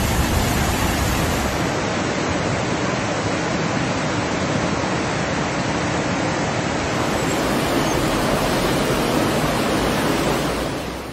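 Flash-flood torrent rushing: a steady, loud rush of fast floodwater that fades near the end.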